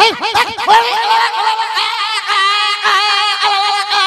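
A man vocally imitating a puppy into a microphone: a quick run of short yelps, each rising and falling, then from about a second in a long, wavering whine held on one pitch.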